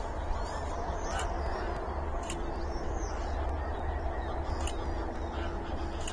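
Many birds calling over a lake, waterfowl among them, with short high calls scattered throughout over a steady low rumble, picked up by an outdoor webcam's microphone.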